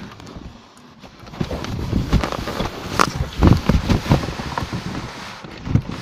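Cardboard box being dragged and jostled across the floor, heard from inside it: irregular thumps and knocks with scraping between them, starting about a second in.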